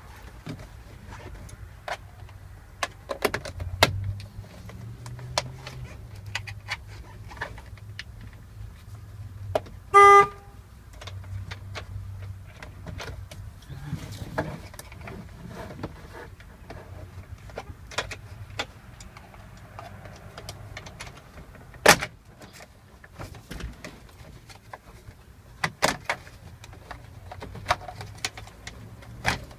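Scattered clicks and knocks of hand work on a Chevrolet van's plastic interior trim, which is being forced loose, over a steady low hum. About ten seconds in there is one short, loud beep.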